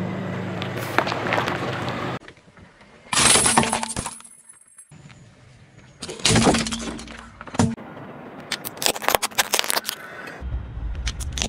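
Car tyre crushing plastic toys: several separate spells of cracking and crunching plastic, broken off by sudden cuts, with a run of sharp snaps in the second half. A low car engine hum comes in near the end.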